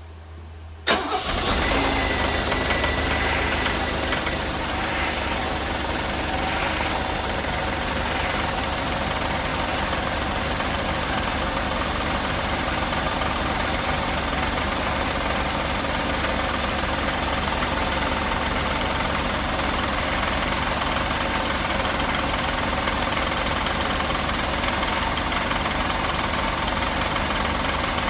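A 1988 Mercedes-Benz 560 SEC's 5.6-litre V8 starts about a second in and settles into a steady idle, with a thin high whine for the first couple of seconds after it catches. It idles with an engine knocking noise, the fault the owner is recording.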